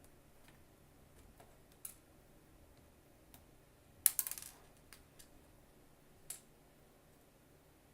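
Scattered small clicks and ticks of a screwdriver working the screws that hold a laptop's screen panel in its lid, with a short louder clatter of several clicks about four seconds in.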